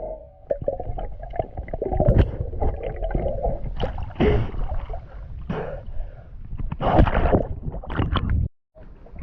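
Water gurgling and splashing close to a swimmer's camera, in irregular surges with knocks and clicks, and with the swimmer's breathing mixed in. It cuts off suddenly near the end.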